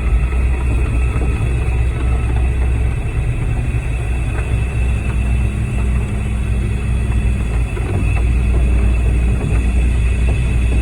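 Concrete mixer truck's engine running with the drum turning and rattling as the last of the load discharges: the drum is close to empty. The low rumble grows louder about eight seconds in.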